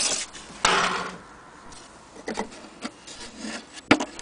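An empty antique wooden wall clock case being handled and shifted about, wood knocking and rubbing. There is a sharp knock at the start, a scraping rub about half a second in, a few softer knocks, and another sharp knock near the end.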